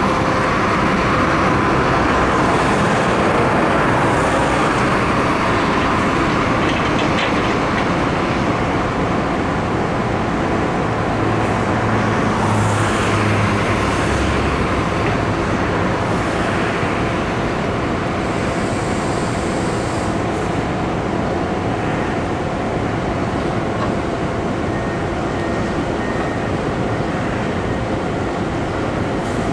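Steady road traffic noise of cars and trucks passing close by, swelling and easing slowly with no single sharp event.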